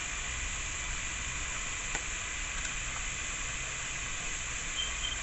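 Steady sizzling hiss of food frying in a pan on the stovetop, with a couple of faint clicks.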